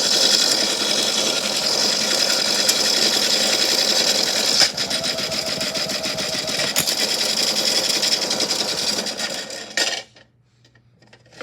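Rocks and shells rattling and clattering together in a dense, continuous churn, cutting off abruptly about ten seconds in.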